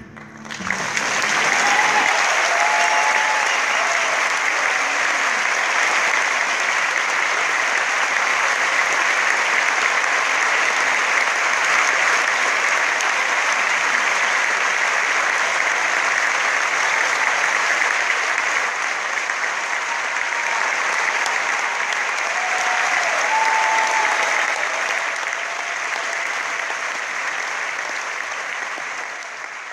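Theatre audience applauding at the end of a song, the clapping swelling within the first second or two and tailing off near the end, with a few voices calling out.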